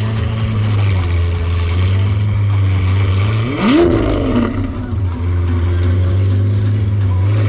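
Lamborghini Aventador's V12 idling steadily, with one quick rev about three and a half seconds in that rises and drops straight back to idle.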